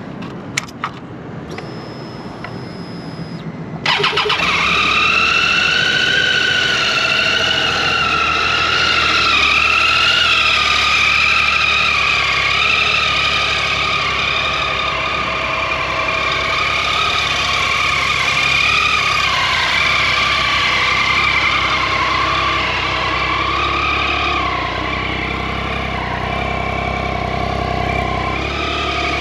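Triumph Tiger 800 XCA motorcycle's three-cylinder engine being started: two clicks and a brief thin high whine as the ignition comes on, then the engine catches about four seconds in and runs at a steady idle that eases slightly lower over the following seconds.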